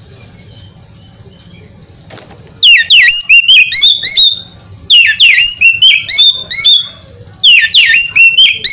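Oriental magpie-robin (kacer) singing: three loud phrases of rapid, clear whistled notes, each about one and a half seconds long. The first starts a few seconds in and the others follow about two seconds apart.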